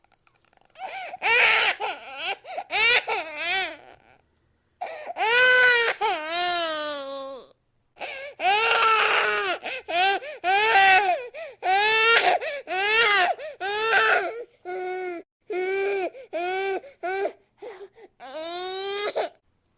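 High-pitched crying sound effect: repeated wailing sobs that rise and fall in pitch, like a baby's or small child's cry. They come in many short bursts and break off abruptly into silence a few times, near the start, after about four seconds and after about seven and a half seconds.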